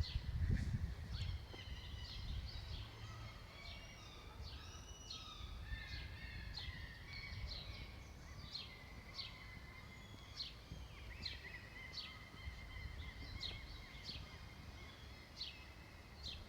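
Small birds chirping over and over in short, high, quick notes, with a low rumble underneath that is strongest near the start.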